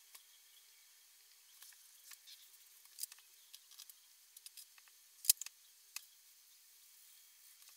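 Faint, scattered small clicks and rustles of paper being handled, a dozen or so short sharp ticks with the sharpest a little past the middle.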